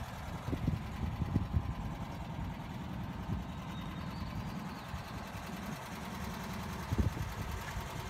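Air-cooled 1600 dual-port flat-four engine of a 1965 VW bus idling steadily, with a few short low thumps along the way.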